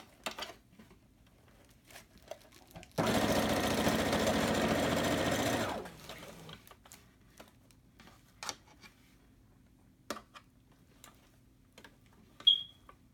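Brother computerized sewing machine running a straight stitch for about three seconds, starting abruptly a few seconds in and winding down to a stop. Before and after come scattered light clicks of the fabric being handled, and near the end a short high beep.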